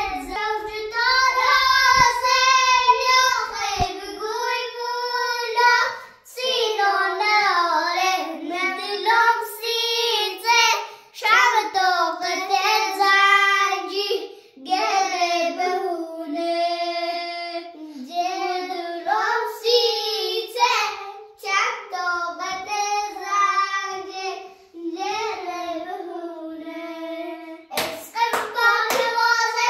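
A child singing a tune in phrases, holding and bending high notes with short breaks for breath. Several sharp hand claps join near the end.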